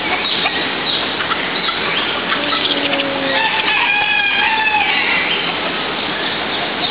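Chickens clucking and a rooster crowing once in the middle, over a steady background noise.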